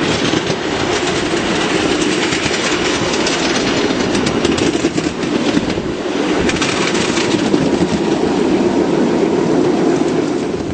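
Miniature railway locomotive running along the track: a steady rumble of its wheels on the rails, with many quick clicks over the rail joints.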